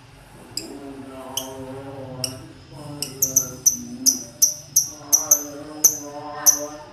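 Lovebird giving short, sharp, high chirps, a few spaced out at first, then a rapid run of about three a second from about halfway through, over a man's chanting voice in the background.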